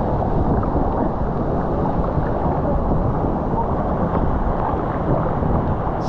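Waterfall in heavy monsoon flow: a loud, steady rush of falling water.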